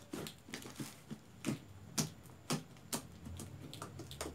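Pink fluffy slime, made with shaving cream and baby powder, clicking and popping as hands knead and poke the lotion into it: a string of short sharp clicks, irregular, about two or three a second.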